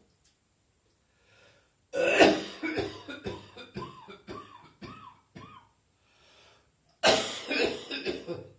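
A person coughing hard in fits: a run of harsh coughs about two seconds in, with a few short strained sounds that rise and fall in pitch between them, then a second bout of coughing about seven seconds in.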